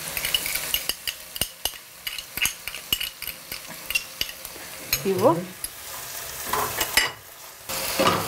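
Sliced onions sizzling in hot oil in a frying pan while a spatula stirs them, with many sharp clicks and scrapes of the spatula against the pan. The sizzle dips briefly near the end, then comes back steadier and louder.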